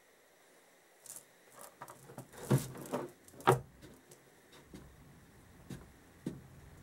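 Small metal engine parts, bolts and washers, being picked up and handled by hand: a scattering of light clicks and taps, the two loudest about two and a half and three and a half seconds in.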